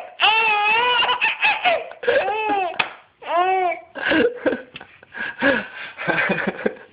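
A baby laughing in a string of high-pitched laughs, the pitch swooping up and down from one laugh to the next.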